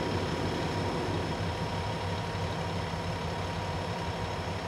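Norfolk Southern diesel-electric locomotive's engine running with a steady low rumble, and a faint steady whine above it.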